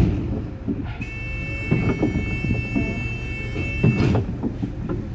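City bus cabin: low engine and road rumble with knocks and rattles. A steady high electronic beep starts about a second in, is held for about three seconds and then stops.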